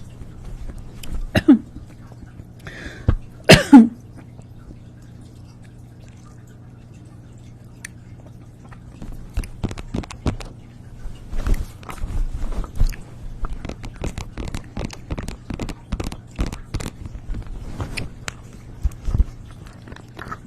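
Close-miked chewing and crunching: a couple of louder mouth sounds in the first few seconds, then a dense run of crisp crunching clicks through the second half, over a steady low hum.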